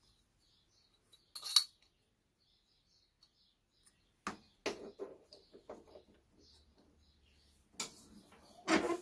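Metal parts of a two-wheel tractor's clutch assembly clinking and knocking against each other and against a steel bench vise as they are fitted together and set between the jaws. There is a sharp clink about one and a half seconds in, a short clatter of knocks from about four to six seconds, and two louder knocks near the end.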